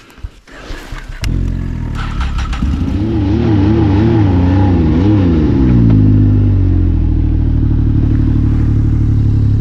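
Snowmobile engine coming in about a second in, revving up and down a few times, then running steadily at a lower, even pitch.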